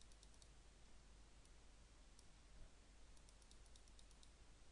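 Faint computer mouse clicks over quiet room hiss: a few quick clicks at the start, two single clicks, then a rapid run of about ten about three seconds in.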